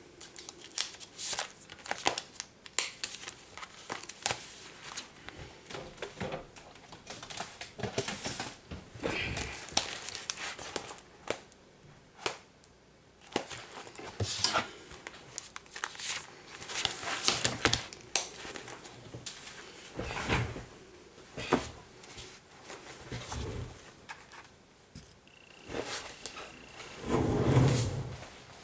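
Metal nail-stamping plates being handled and slid back into their plastic holders: a run of small clicks, taps and crinkling rustles, with a louder, lower sound near the end.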